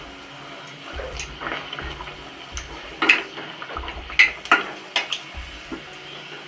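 Puri deep-frying in hot oil in a metal kadhai: a steady sizzle, with a few sharp clicks and scrapes of a steel slotted spatula against the pan between about three and five seconds in.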